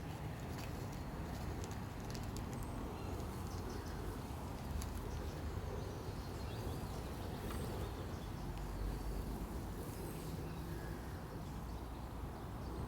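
Outdoor nature ambience: a steady low rumble with faint, scattered bird chirps and small ticks over it.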